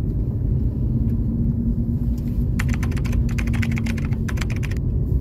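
Steady low rumble of a car driving, road and engine noise with a faint steady hum. About two and a half seconds in, a run of rapid clicking lasts about two seconds.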